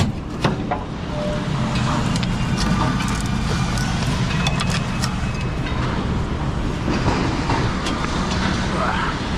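Heavy diesel engine running steadily at idle, with scattered metallic clicks and knocks over it; a sharp knock right at the start.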